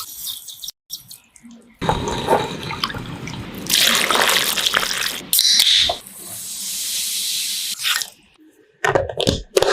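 Water running and splashing in a kitchen sink, in several short clips that cut in and out abruptly.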